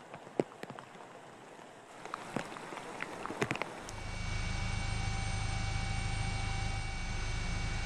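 Splashing and sloshing of people wading through floodwater. About four seconds in it gives way to a loud, steady low drone with a steady high whine, the engine and rotor noise of a helicopter filming the flood from the air.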